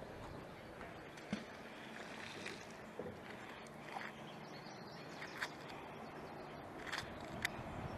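Faint steady rush of river water, with a few light, sharp clicks scattered through it as small metal bits stuck to a magnet-fishing magnet are handled in gloved hands.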